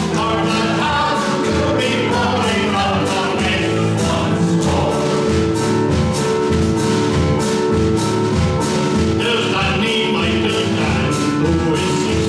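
Live band music: a song played with a steady beat of about two strokes a second, sustained instrumental notes and voices singing together.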